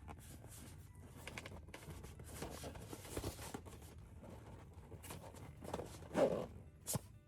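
Plastic toy packaging being handled and opened: rustling, scraping and small clicks. A louder muffled knock comes about six seconds in, and a sharp click follows just before the end.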